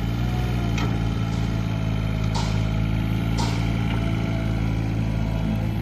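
Komatsu PC20R-8 mini excavator's diesel engine running at a steady speed, with three sharp clicks or knocks over it.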